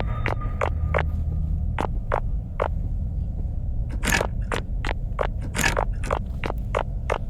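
Short crunching scrapes repeating about two or three times a second, over a low steady rumble.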